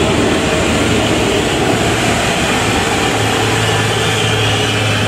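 Diesel dump truck engine running as the truck passes close by, a steady low drone that grows stronger about three seconds in, over steady road and traffic noise.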